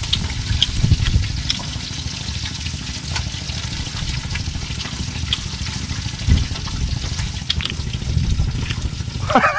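Hot oil sizzling steadily with small crackles as squid fries, over a low rumble.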